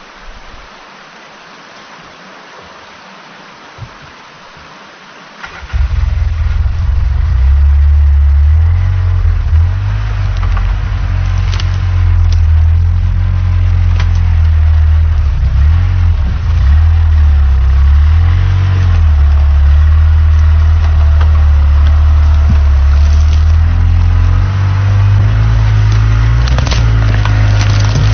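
Faint flowing water, then about five and a half seconds in a UTV engine starts and runs loudly, its pitch rising and falling as the machine is driven across a new log bridge under a test load of about 1,800 lb.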